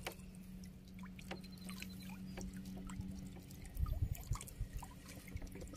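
Water trickling and dripping from a raised anco lift net, with scattered small ticks and a few soft low knocks about four seconds in.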